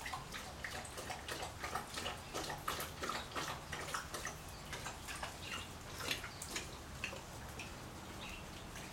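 Alaskan Malamute lapping water from a bowl: quick, irregular wet laps and splashes that die away near the end.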